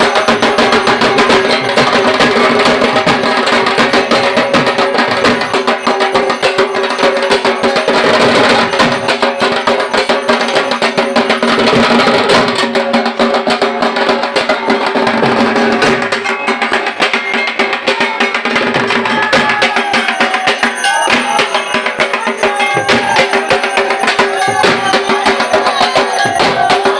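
Dhak, the Bengali barrel drum of Durga Puja, beaten with sticks in a fast, dense, unbroken run of sharp strokes.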